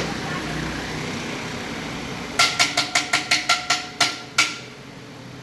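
Rapid metallic hammering: about ten quick strikes on a ringing metal part, starting a little over two seconds in and stopping about two seconds later, over a steady background hum of traffic.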